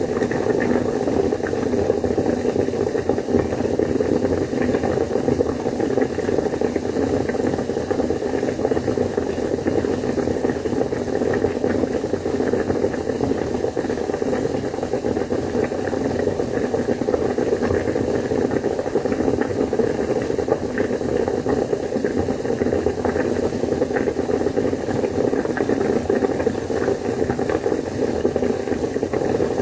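Water boiling hard in a cooking pot: a steady, dense bubbling with a hiss of steam.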